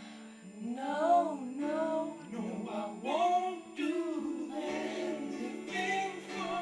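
Young voices singing a melody over held backing chords that change every second or two.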